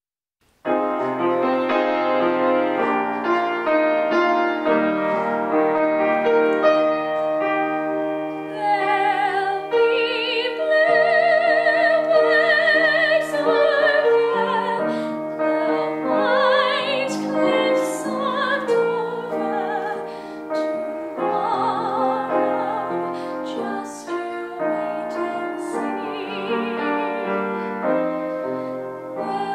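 A girl singing solo in a classical style with vibrato, accompanied by piano. The piano starts alone just after the beginning and plays an introduction, and the voice comes in about eight or nine seconds in.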